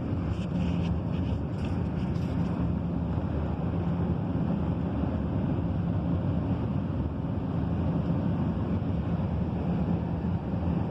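Steady airliner cabin noise: an even rush of engines and airflow with a low hum underneath.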